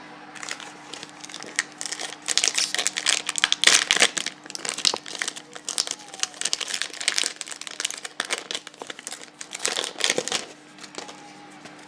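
Foil trading-card pack wrapper being torn open and crinkled in the hands, a dense run of sharp crackles that is loudest a couple of seconds in and dies away shortly before the end.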